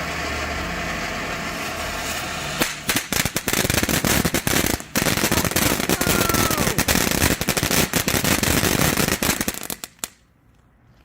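TNT Wild Flower box fountain spraying with a steady hiss, then breaking into dense, rapid crackling about two and a half seconds in. The crackle runs on, briefly faltering once, and stops abruptly near the end.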